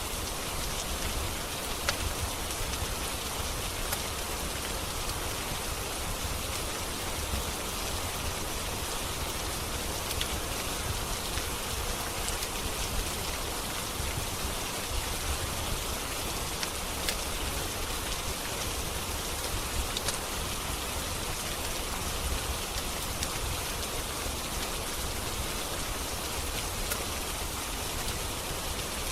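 Steady rain falling, an even unbroken hiss with a low rumble beneath, with a few sharp crackles from a wood fire scattered through it.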